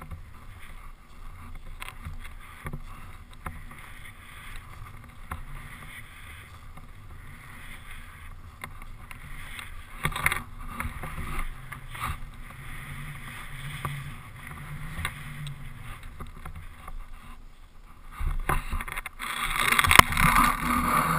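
Skis hissing and scraping through snow as the skier turns downhill, in uneven swells. From about eighteen seconds in, louder rubbing and knocks as the skier stops and handles the camera pole.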